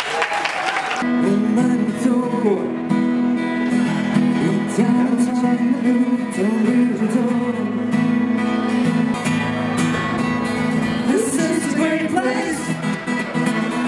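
Acoustic guitar strummed live while men sing a slow melody into microphones; the guitar and voices come in about a second in.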